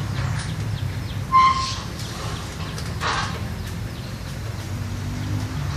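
Two short animal calls: a brief clear call about a second and a half in, the loudest sound, and a shorter, rougher one about three seconds in. A low steady hum runs underneath.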